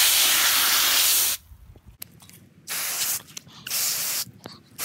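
Garden hose spray nozzle on its cone setting, spraying water onto boots: a steady hiss for about a second and a half, then it stops and comes back in several short squirts.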